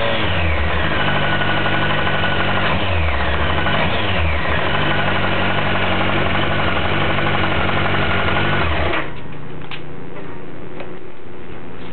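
2007 Kawasaki ZX-14's inline-four engine settling from a rev, blipped twice, then idling with a knock that the owner takes for bottom-end rod knock and Kawasaki calls normal for the model. About nine seconds in the engine note stops abruptly, leaving a few light ticks.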